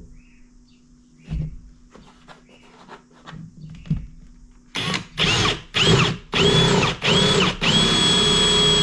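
Handheld power drill boring a hole through the kayak hull for a cable gland. A few light knocks come first, then several short bursts with the motor whining up and falling back, and a longer steady run near the end.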